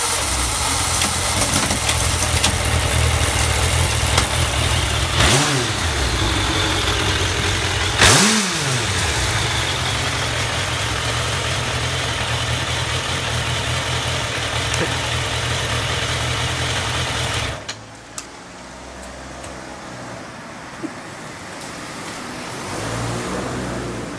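Suzuki GSF1200S Bandit's air/oil-cooled inline-four idling evenly, blipped twice with quick rising-and-falling revs about five and eight seconds in. It then cuts off suddenly, leaving a faint background hum with a couple of small clicks. The idle is what the seller lists as stable and free of abnormal noise.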